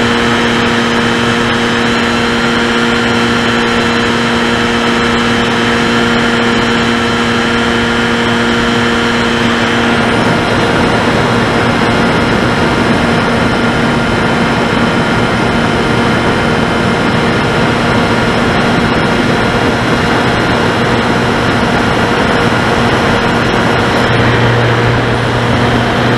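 Electric motor and propeller of an RC model airplane heard from on board, running steadily in flight with constant wind rush. The motor's tones shift about ten seconds in, as with a throttle change.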